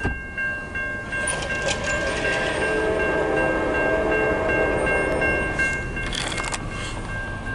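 Grade-crossing warning bell ringing in a steady rapid pulse while a locomotive horn sounds one long blast of about three and a half seconds. A short clatter of knocks comes near the end.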